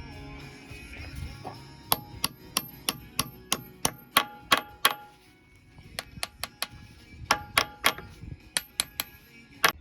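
Hammer blows driving the boom cylinder's mounting pin back into the backhoe, about three strikes a second, in two runs with a short pause near the middle. Each blow gives a sharp metallic ring.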